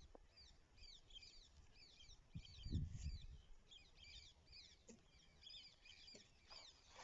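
Faint chirping of small birds, many short quick chirps repeating throughout, with a soft low thump a little under three seconds in.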